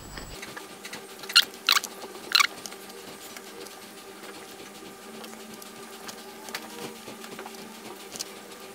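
Hands working soft bread rolls on a wooden chopping board: light pattering and scratching. Three sharp clicks come about one and a half to two and a half seconds in, over a faint steady hum.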